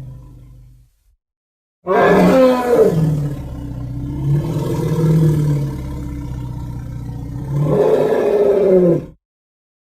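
Triceratops creature roar sound effect: one long, deep, aggressive roar of about seven seconds, starting about two seconds in, loudest at its start and again near its end, and cutting off abruptly. Before it, the tail of a low pulsing sound fades out in the first second.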